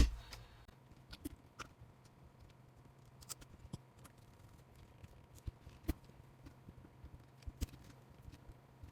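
Scattered light clicks and taps of small parts being handled and fitted as the shocks and links go back onto a mini RC crawler's axle, over a faint steady hum.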